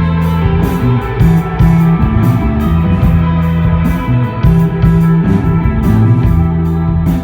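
Desert rock played live by a band: electric guitar and bass holding low sustained notes over drums, with cymbal hits several times a second.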